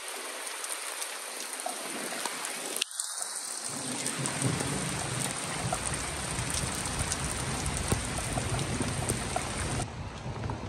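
Heavy rain falling steadily in a thunderstorm, with a low rumble of thunder underneath from about four seconds in.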